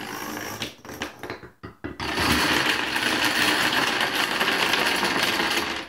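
Dominoes toppling in a chain reaction: a fast rattle as a line of dominoes falls, a few separate knocks about a second in, then from about two seconds a loud, dense clatter as a wall of plastic dominoes collapses, cutting off suddenly near the end.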